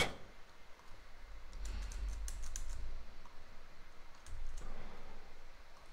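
Faint clicking of computer keyboard keys and mouse buttons while code is pasted and edited: a cluster of quick clicks about two seconds in and a few more about four and a half seconds in.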